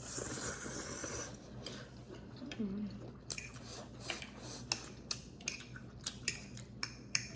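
Close-up eating sounds of noodles and shrimp: chewing with many small wet clicks and smacks, after a breathy rushing noise in the first second.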